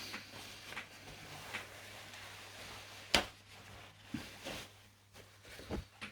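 Tissue rubbing over a clock case as wax is wiped on, with handling knocks: a sharp one about three seconds in and softer ones near the end.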